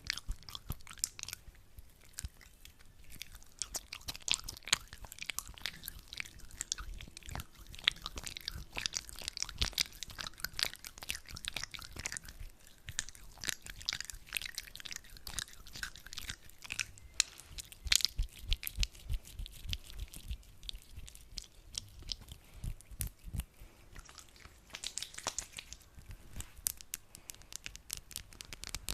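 Hands rubbing and squishing sticky aloe vera gel close to the microphone: a dense, unbroken run of wet, crackling clicks.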